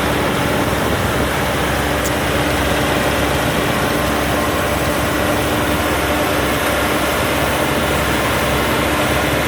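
WD102 PRO combine harvester's diesel engine running steadily and loudly, with a steady whine over the engine noise.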